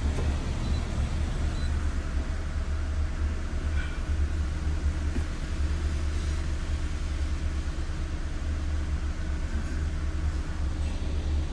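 Suzuki Alto's small three-cylinder petrol engine idling with an even, steady low rumble. The misfire is cleared after the jammed tappets were freed and adjusted.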